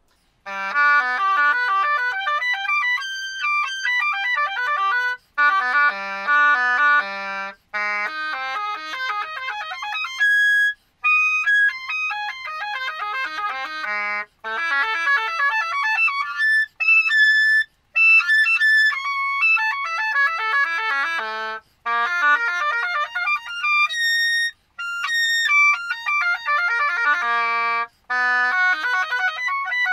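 Bassoon playing broken arpeggios at a moderate mezzo forte: runs of quick slurred notes that climb high and sweep back down, the pattern repeated on new keys. Brief pauses break the runs every few seconds.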